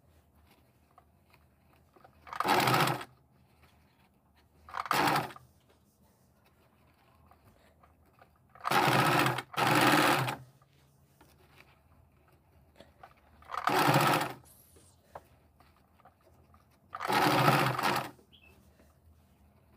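Electric sewing machine stitching in short runs: about six bursts of a second or so each, with pauses between them as folded fabric pieces are fed under the presser foot.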